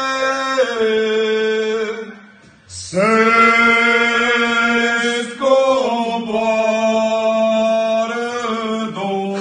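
Men singing a slow Romanian Christmas carol (colind) in long drawn-out notes, with a short breath pause about two and a half seconds in and the melody stepping to new notes later on.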